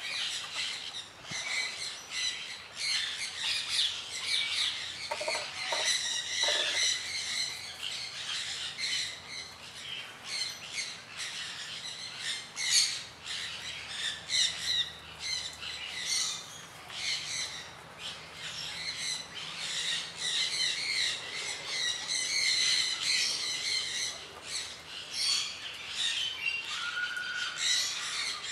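A dense chorus of bird calls: many short, high chirps and squawks overlapping without a break.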